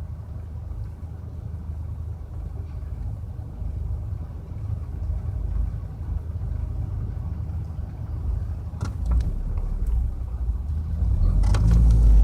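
Steady low rumble of a car being driven, heard from inside the cabin: engine and tyre noise on the road. A few faint clicks come about nine seconds in, and the rumble grows louder near the end.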